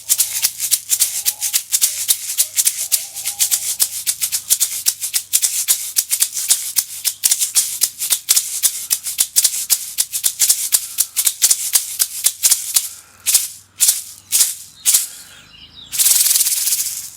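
Horse-skin shaman rattle filled with glass seed beads and tiny crystal chips, shaken rapidly and rhythmically. Near the end it slows to a few separate shakes and then one long continuous swirl of the beads.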